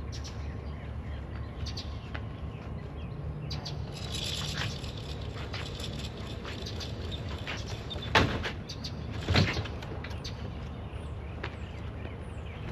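Rope rubbing as it is worked through a pulley rig, with two sharp knocks about eight and nine seconds in. Birds chirp faintly behind it.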